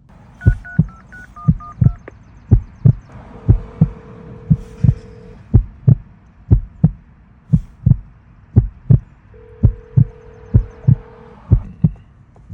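Gate call box dialling a resident: a quick run of short keypad beeps, then the ringback tone of the phone line, two rings of about two seconds each, six seconds apart. A steady low thump about twice a second runs underneath and is the loudest sound.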